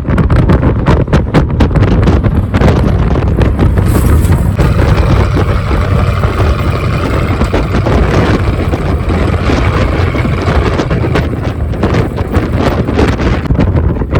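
1982 Ford F-150's 302 V8 running loud through a 3-to-4-inch step exhaust while the truck is driven at low rpm, with wind buffeting the microphone.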